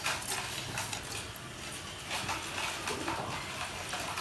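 Hot oil in a preheated karahi sizzling lightly, with many small scattered crackles and pops, as salt and crushed black pepper are sprinkled into it.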